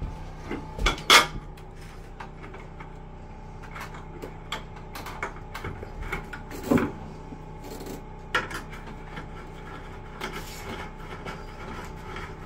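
Small metallic clicks and scrapes of a screwdriver working a screw through a shower valve's chrome trim plate, with a few louder knocks scattered through.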